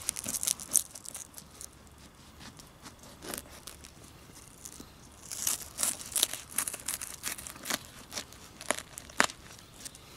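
A knife sawing through the crusty, partly burnt crust of a Dutch oven bread loaf. Bursts of crunching, scraping strokes come at the start and again from about halfway, and two sharp cracks follow near the end.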